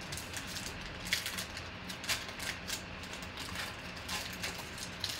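Foil wrapper of a Panini Prizm Draft Picks football card pack crinkling and crackling as it is torn open by hand, in an irregular run of sharp crackles.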